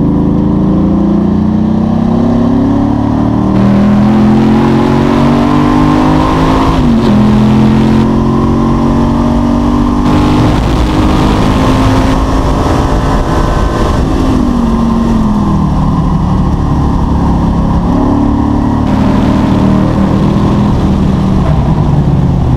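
Race car engine at hard throttle, heard from inside the car: it revs up, the pitch drops back at each upshift, then it climbs again. There are a few abrupt cuts in the sound.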